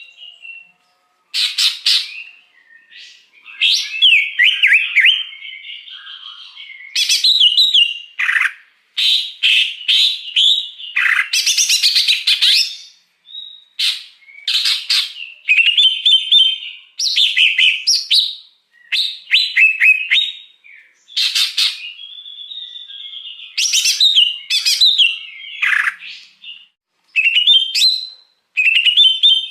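Greater green leafbird (cucak hijau) singing a loud, varied song of fast chirps, trills and gliding whistles, in phrases of a second or two separated by short pauses.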